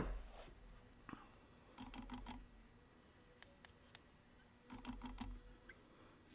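Pliers working a spring hose clamp as a fuel line is pushed back onto a scooter carburetor: a few short clusters of faint clicks and rustles, with three sharp ticks midway.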